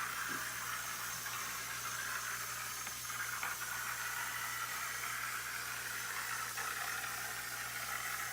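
Lego EV3 cleaning robot running, its small electric motors driving the wheels and spinning the scrubbing sponge, heard as a steady whirring hiss with a low hum underneath.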